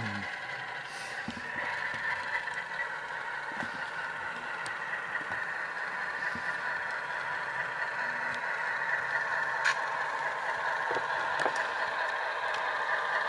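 Simulated diesel engine sound from a Tsunami sound decoder, played through the small onboard speaker of an HO-scale RS10 model locomotive running slowly. The engine sound is steady and thin, growing gradually louder as the locomotive comes closer, with light clicks and rattles from the wheels on the track.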